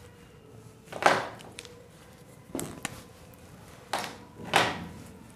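Four soft scuffing footsteps on a hard floor, spaced unevenly.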